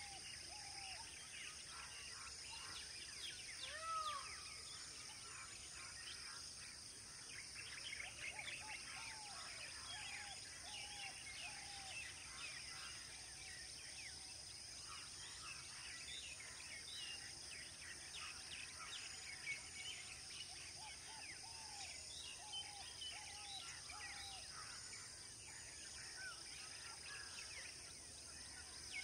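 Outdoor ambience of wild birds calling over a steady high-pitched insect drone. Several runs of four or five short arched whistled notes repeat near the start, around a third of the way in, and again near the end, among many quick high chirps.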